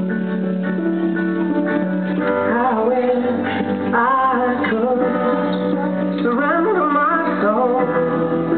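Recorded pop song playing: held accompaniment chords, with a solo voice singing a melodic line from about two seconds in until near the end.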